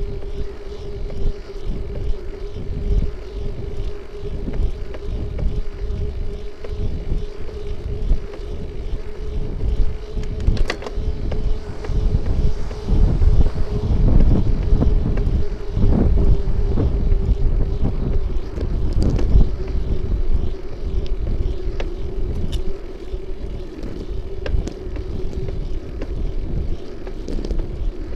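Wind buffeting the microphone of a bicycle-mounted camera, with road rumble and a steady hum throughout, and a few light knocks. A car passing close by about halfway through makes the rumble loudest.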